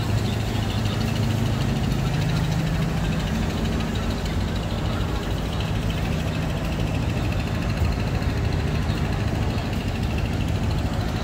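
Truck engine idling close by, a steady low hum, strongest in the first few seconds, over a constant wash of street traffic noise.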